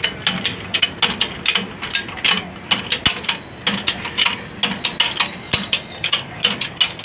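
Hydraulic bottle jack on a shop press being pumped by hand, its handle and pump mechanism clicking and knocking in a quick, steady rhythm as the ram bears down to press an axle bearing off its shaft. A thin high tone sounds for a couple of seconds in the middle.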